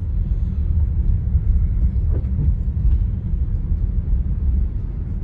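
Low, steady rumble of a car driving slowly, road and engine noise heard from inside the cabin.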